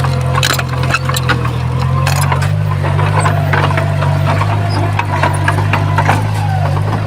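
Heavy diesel earthmoving machine running steadily under load, with many sharp knocks and cracks of rock and stone being shoved and tumbling against each other.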